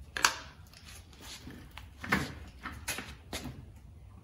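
Several sharp metal clanks and knocks as hand tools are handled and fitted to a cast-iron engine block, the loudest about a quarter second in and three more in the second half.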